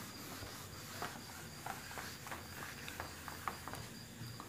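A whiteboard being wiped with a cloth duster: faint rubbing with scattered light taps and clicks, about one or two a second.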